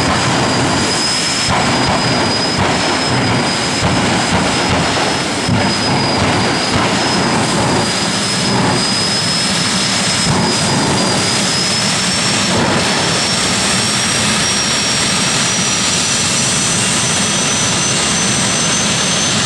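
Drag-racing jet car's turbine engine running steadily: a dense rushing noise with a thin high whine that rises slightly in pitch past the middle.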